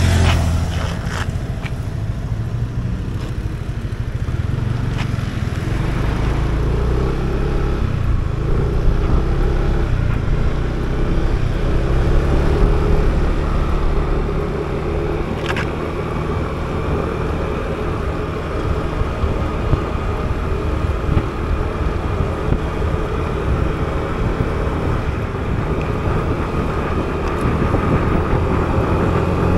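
Yamaha motor scooter's small engine running at road speed, heard from the rider's seat with wind and tyre noise mixed in; the engine pitch rises near the end as it speeds up.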